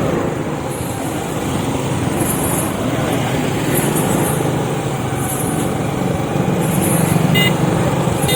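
Motor vehicle engine running steadily at low speed, swelling a little near the end. A faint high-pitched chirp repeats about every second and a quarter, and a short beep sounds near the end.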